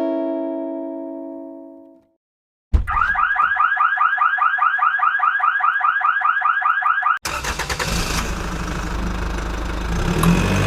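Fake Emergency Alert System alarm: after a sustained chord fades out, a loud electronic alarm tone warbles rapidly, about six or seven pulses a second, for about four seconds. It cuts off abruptly into harsh static with a low hum.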